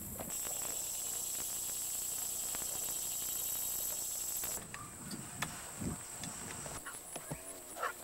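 Outdoor insect chorus: a steady high buzz for the first half, dropping away at a cut. After it come a few short knocks and thumps, and a brief pitched call near the end.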